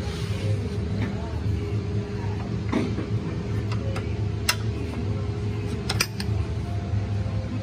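A steady low machine hum, with a few sharp metallic clicks as a homemade plier-style brake spring tool works the return spring on a heavy truck's drum brake shoe.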